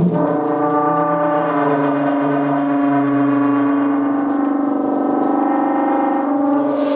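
Trombone sounding one long held note that starts abruptly, with several pitches ringing together over it. The lowest pitch drops out and comes back partway through.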